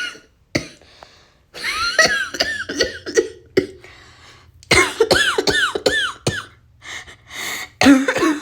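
A woman coughing over and over in several fits, including a run of about five quick, voiced coughs in the middle: an asthma flare-up brought on by stress.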